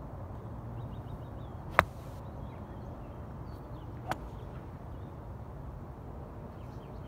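Two sharp clicks about two seconds apart, the first much louder, over steady outdoor background noise with faint bird chirps.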